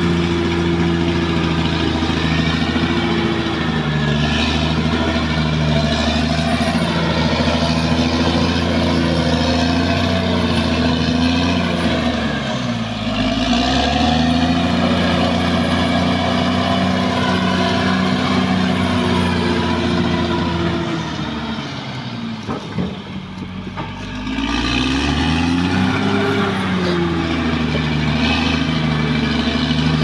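Caterpillar D6R XL crawler bulldozer's diesel engine running steadily while it pushes earth. Its pitch sags briefly near the middle, then drops deeper and quieter for a few seconds about two-thirds through before climbing back up.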